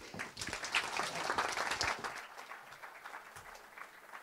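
Audience applauding, loudest over the first two seconds and then dying away.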